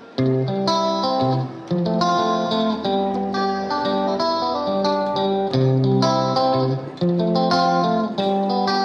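Instrumental background music led by a plucked guitar, starting abruptly just after the beginning and going on with a steady run of notes.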